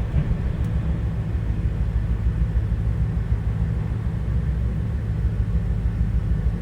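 A steady low rumble with no speech, even throughout.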